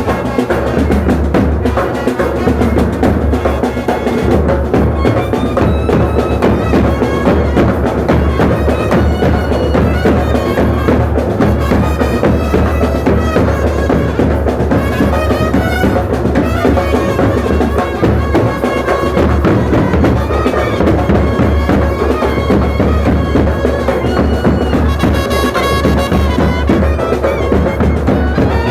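South Indian festival band music: fast, dense drumming with a reedy wind-instrument melody over it.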